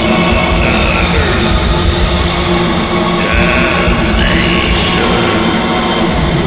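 Raw black metal: a dense, loud, unbroken wall of distorted guitars and drums, with a few slow gliding tones drifting over it.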